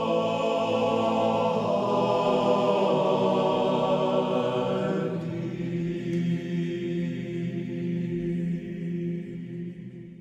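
Choir chanting long held chords. The higher voices drop away about halfway through while the lower voices hold on, then fade out near the end.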